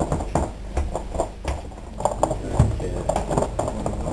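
Irregular soft knocks and taps, two or three a second, from hand work at a bakery bench laid with rows of pastry cases.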